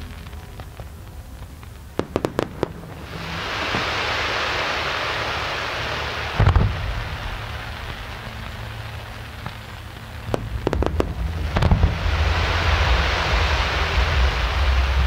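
Aerial fireworks bursting: a quick cluster of sharp cracks, then a long hissing crackle, a deep boom, more cracks and a second boom, and another long hissing crackle near the end, over a steady low rumble.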